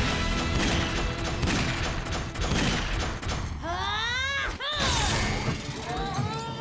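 Animated robot-battle soundtrack: music under mechanical clanks and heavy impacts, with a swooping pitched sound about four seconds in.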